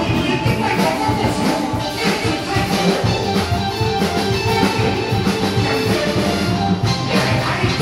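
Instrumental accompaniment of a Taiwanese opera (gezaixi) stage performance: a sustained melody over repeated percussion crashes.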